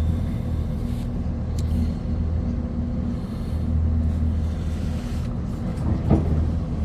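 Steady low mechanical hum, like an engine or motor running, with a short knock about six seconds in.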